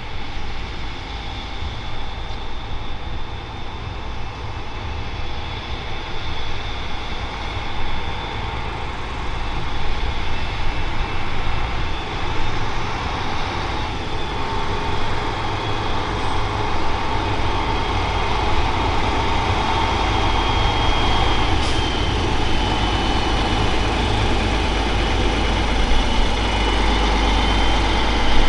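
Diesel-electric Stadler Citylink tram-train approaching and drawing past, its engine running with a steady high whine over a low rumble, getting louder as it nears.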